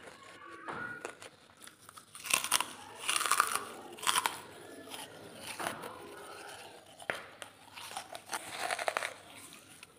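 A person biting and chewing dry lumps of charcoal: a run of sharp, crisp crunches. They are loudest about two to four seconds in and pick up again near the end.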